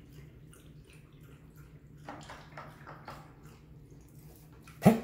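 Small dogs playing on a tile floor: scattered light clicks and scuffling over a low steady hum, with one sudden loud sound near the end.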